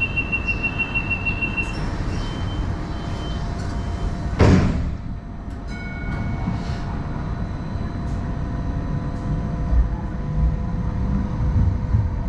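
Interior of a Hong Kong Light Rail Phase 1 car: a fast run of high warning beeps, then a few spaced beeps, then the sliding doors shut with a loud thud about four and a half seconds in. After that the car's steady electrical hum and low rumble carry on.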